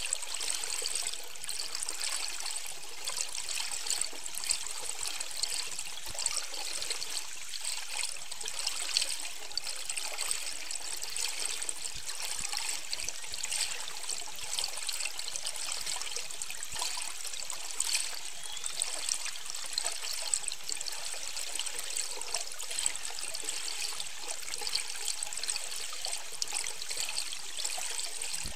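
Underwater audio: a steady hiss of moving water with many faint clicks and crackles scattered through it.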